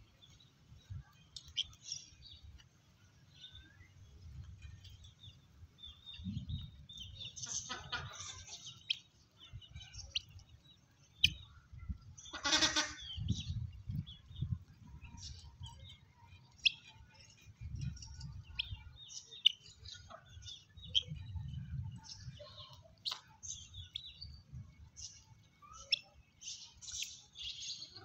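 Farmyard fowl calling: scattered short high chirps and cheeps, with two louder harsh calls, one about eight seconds in and one around twelve to thirteen seconds in, over a low rumble.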